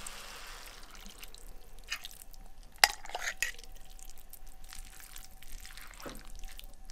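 Heavy cream poured into a cast iron skillet of cooked salmon and onions, then kefir cheese spooned in and stirred with a wooden spoon: soft wet liquid sounds with scattered light taps, the sharpest about three seconds in.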